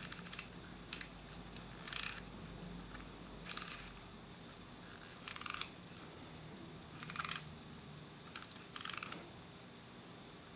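Faint short clicks and rustles, about eight of them spread unevenly, from hands working a Minolta XD-7 SLR: the lens's aperture ring being turned and the camera handled as the aperture is stopped down.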